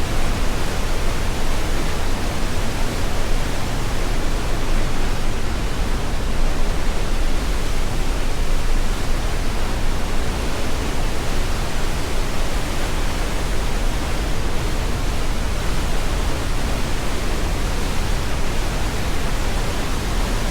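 Glacial meltwater of the Gornera river rushing through a narrow rock gorge, a loud, steady wash of water noise that does not let up.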